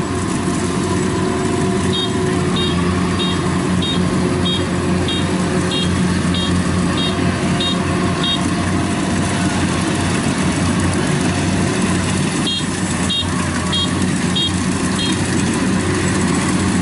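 Kubota 70 rice combine harvester running steadily under load as it cuts, its diesel engine a steady hum. A high electronic beeper sounds over it in two runs of evenly spaced beeps, about one and a half a second, the second run starting about twelve seconds in.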